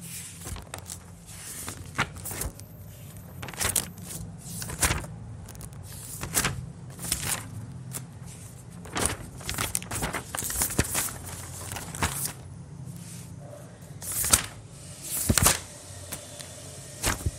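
Scattered short clicks and rustles, irregular and sometimes in quick clusters, over a steady low hum.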